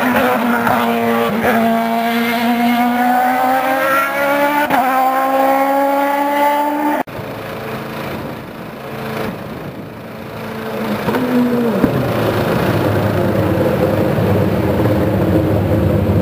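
IndyCar's Honda V8 engine accelerating hard out of a corner, its note climbing and dropping sharply at two upshifts. After an abrupt cut, a quieter stretch follows with an engine note winding down, then a steady low engine drone.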